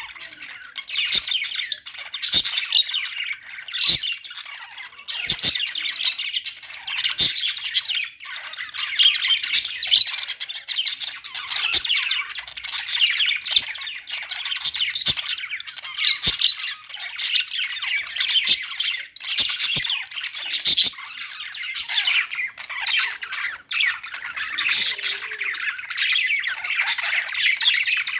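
Budgerigars chattering and warbling without a break, cut through by frequent short, sharp squawks.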